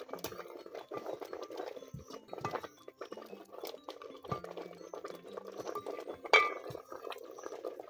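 Long wooden spoon stirring a pot of boiling greens and knocking against the aluminium pot, over the bubbling of the boil, with one sharper knock about six and a half seconds in.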